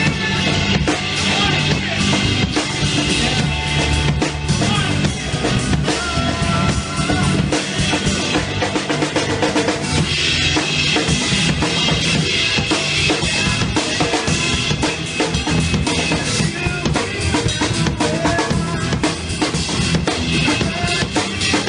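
Drum kit playing a steady rock beat of kick, snare and cymbals over a recorded band track.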